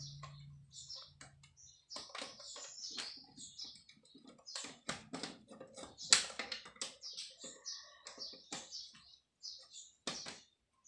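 Scattered small clicks and taps of wires and a hand tool being handled as a live wire is fastened to a circuit breaker, with birds chirping in the background.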